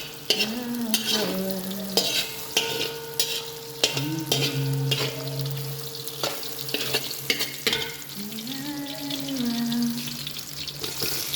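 Sausages frying in a pan, sizzling steadily, stirred with a utensil that knocks and scrapes against the pan many times.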